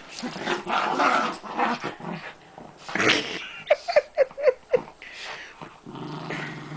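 A Bichon and a Schnauzer play-fighting: growling, with a quick run of about six short yips about halfway through and a low growl near the end.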